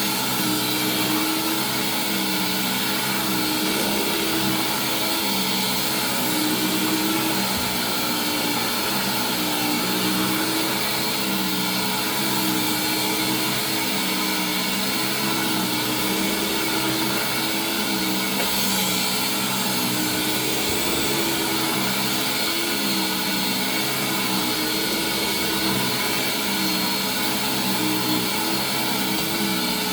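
Hoover Windtunnel canister vacuum running steadily with a Eureka power nozzle's brush roll spinning on carpet, a continuous suction rush with a motor hum that wavers slightly in pitch as the nozzle is worked.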